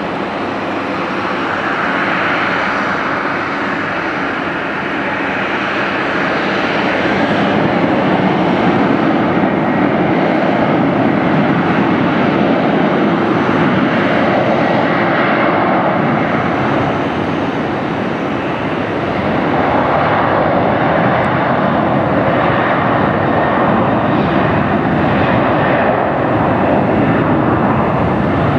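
Airbus A320 jet engines running on the ground, a loud steady rushing roar that swells and eases a few times.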